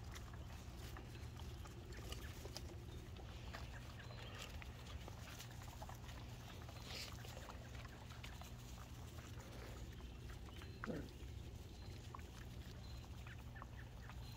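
Goldendoodle puppies moving about, with faint scattered scuffs and clicks, and one brief puppy grunt about eleven seconds in.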